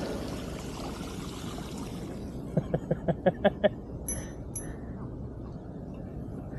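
Bicycle wheels splashing through shallow floodwater, the splashing dying away over the first two seconds. About halfway through comes a short run of about seven quick pitched pulses.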